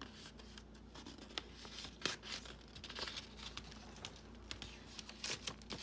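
Mail packaging being handled and opened: soft rustling and crinkling with scattered light clicks and small tearing sounds.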